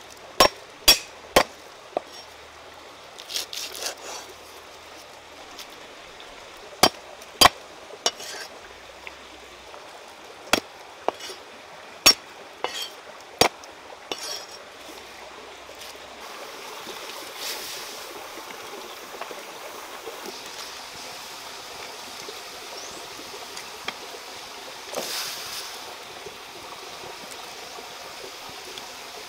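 A cleaver chopping lemongrass and shallots on a wooden chopping board: irregular single sharp knocks through the first half. About halfway in these give way to a steady watery hiss from a wok of water over a wood fire, with a brief splashy burst near the end.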